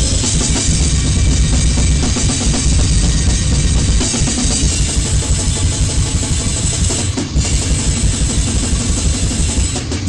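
Goregrind/noisecore recording: loud, dense distorted noise over fast, pounding drums and cymbals, with a brief break about seven seconds in.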